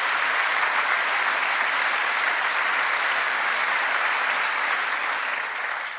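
Applause from a large chamber audience, steady clapping that eases off slightly near the end.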